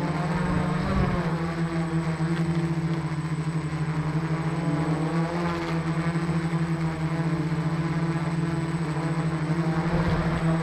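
A small motor running with a steady hum, holding one pitch throughout.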